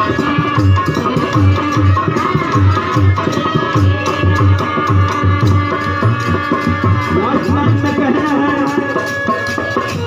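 Music from a nirgun folk devotional song: a hand drum keeps a steady beat of about two strokes a second under a sustained melody.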